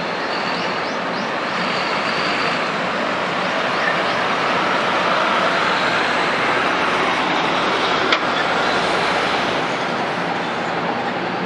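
Steady rushing outdoor background noise that swells gently midway, with faint short high chirps in the first couple of seconds and a single sharp click about eight seconds in.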